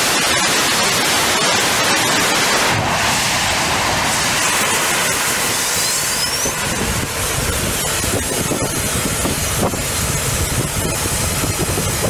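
Balerion development engine, a liquid-propellant rocket engine, firing on a static test stand: a loud, steady rushing noise with a few sharp cracks.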